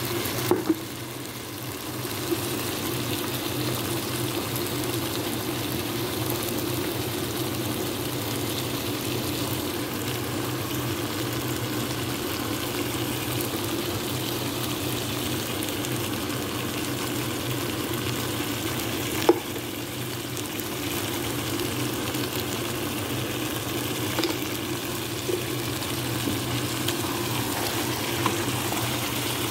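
Chicken in a thick spiced masala sizzling and simmering in a nonstick pot, the curry base for chicken biryani, over a steady low hum. A few sharp clicks, the loudest about two-thirds of the way through, and a wooden spatula stirring the pot near the end.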